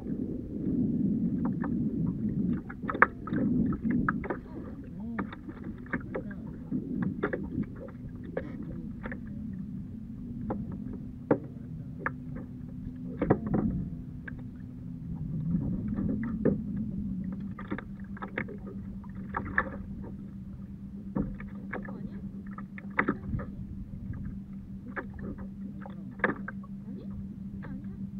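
Small waves slapping against a plastic kayak hull, with irregular knocks and clicks, over a low rumble of water and wind. About halfway through, a low steady hum comes in and holds.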